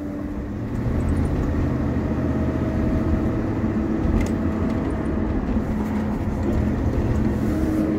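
Inside the cabin of a 2004 Chevy Tahoe under throttle, the front differential whines, a steady hum heard over the engine and road noise. The driver takes it for a worn ring and pinion gear and bearing.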